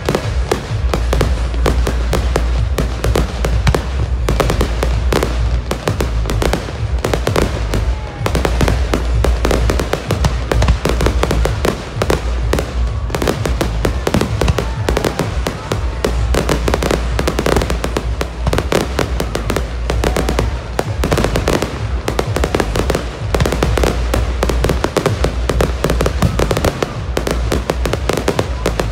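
Aerial fireworks display: a continuous barrage of shell bursts and crackling, many bangs every second.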